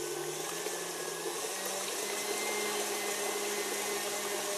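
Electric mixer running steadily, whisking eggs for brioche dough; its motor hum steps up slightly in pitch about a second and a half in.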